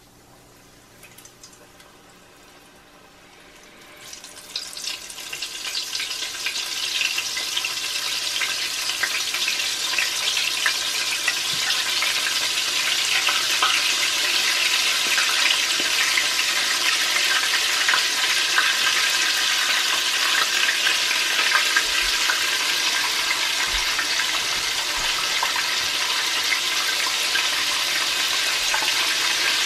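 Chicken tenders deep-frying in hot oil, about 350 °F, in an enameled cast-iron pot. A dense sizzle and crackle starts about four seconds in, builds over a couple of seconds, then holds steady.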